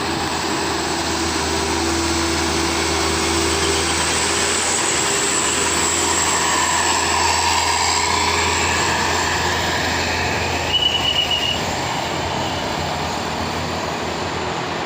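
A large bus's diesel engine climbing a steep incline under load: a loud, steady drone with a low hum under it. A short high tone sounds briefly about eleven seconds in.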